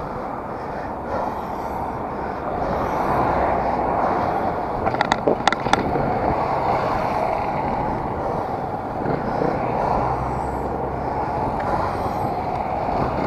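Steady road and traffic noise heard from a recumbent trike riding along a street among cars. A quick run of about five sharp clicks comes a little after five seconds in.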